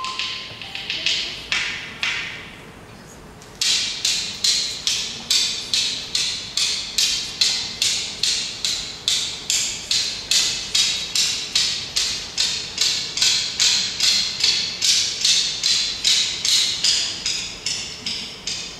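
A small hand-held percussion instrument played in a steady rhythm of short strokes, about two to three a second. A few softer strokes come first, then a brief pause about two seconds in before the even rhythm sets in.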